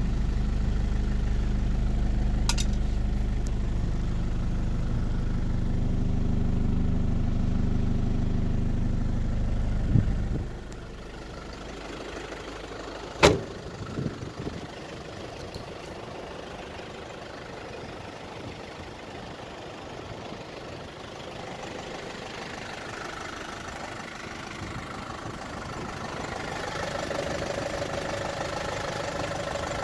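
The 1988 Isuzu Bighorn's 4BJ1-T 2.8-litre turbo-diesel idling with a steady low rumble. About ten seconds in the rumble drops sharply as the sound goes from inside the cab to outside. A few seconds later comes one sharp bang, the driver's door shutting, and then the diesel idles on more quietly with a hum that grows near the end.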